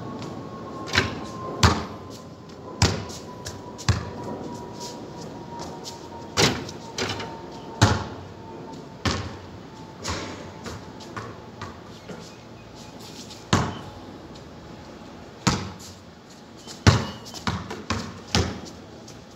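A basketball bouncing on a concrete court and striking the backboard and rim: sharp separate thuds at irregular intervals of a second or two, coming quicker near the end.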